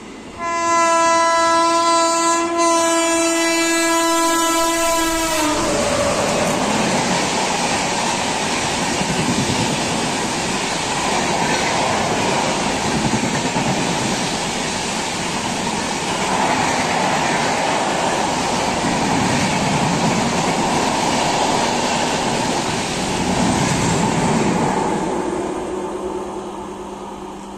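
WAP-7 electric locomotive sounding one long horn blast of about five seconds on a single steady note as it approaches. The horn is followed by the express train rushing through the station at about 85 km/h: a long, loud run of wheel clatter that fades near the end.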